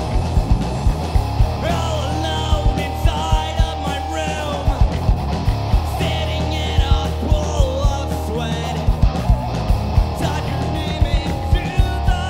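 Studio recording of an alternative rock song: distorted electric guitars and bass over a steady drum beat, with a man's voice singing from about two seconds in.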